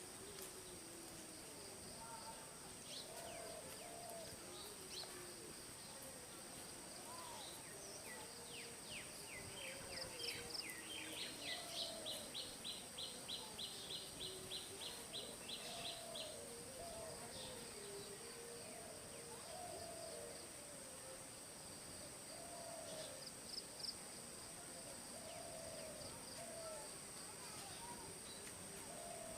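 Rural outdoor ambience: insects drone steadily at a high pitch throughout. About ten seconds in, a bird calls a fast run of repeated notes, about three a second, lasting several seconds. Faint, wavering low calls come and go underneath.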